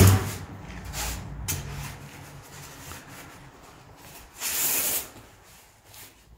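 Expanded-polystyrene foam boards being handled: a heavy thump at the start, a couple of lighter knocks, then about four and a half seconds in a half-second rasping scrape of one foam board sliding against another.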